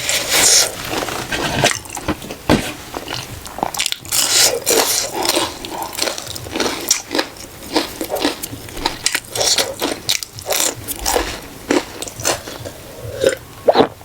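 Close-up eating sounds: a stream of chewing and crunching bites with wet mouth clicks, irregular and continuous.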